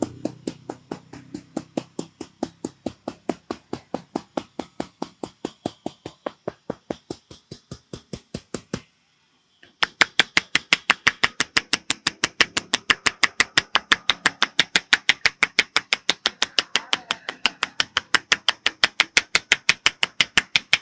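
Rapid, evenly spaced percussive hand strikes of a barber's tapping head and shoulder massage, about five a second. They break off for about a second a little before halfway and then resume louder.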